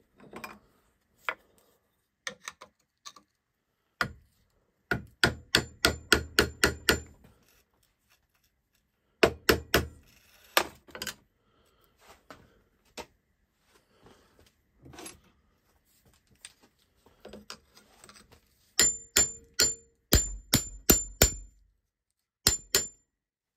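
Sharp metal taps on screwdrivers wedged behind the clutch front plate of a Denso 7SB16C car AC compressor, driving them in to pry the plate off its shaft. The taps come in three quick runs of several strikes each, with scattered single taps between.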